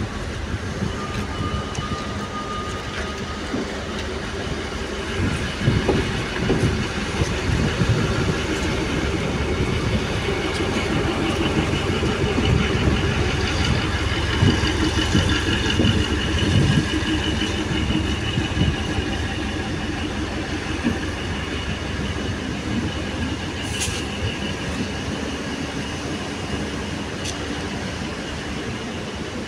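Passenger train carriages rolling slowly out of a station, the wheels clattering and knocking over the rail joints. It builds in the middle and eases off as the train moves away.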